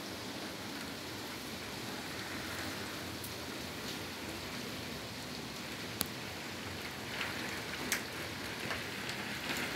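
Torrential rain pouring down, a steady even hiss heard through a rain-streaked window, with a couple of sharp ticks about six and eight seconds in.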